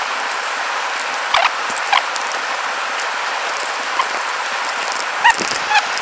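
Mountain stream water rushing steadily, with a few brief high chirps over it.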